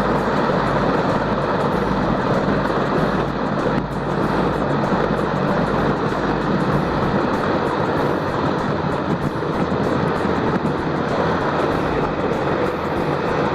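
Mi-26 heavy-lift helicopter's twin turbines and rotor running, a loud steady noise with a low steady hum beneath.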